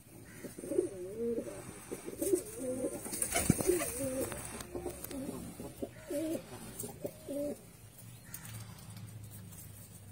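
American fantail pigeons cooing: a long run of wavering, rolling coos that stops about three-quarters of the way through, with a single sharp knock about three and a half seconds in.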